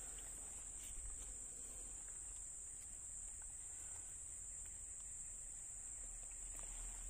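Insects shrilling in one steady, high-pitched drone, with a faint low rumble beneath.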